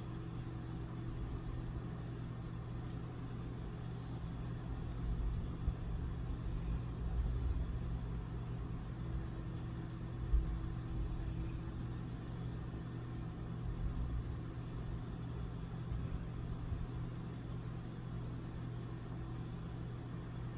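Steady low electrical hum with a low rumble of room background noise, and a couple of soft brief thumps partway through.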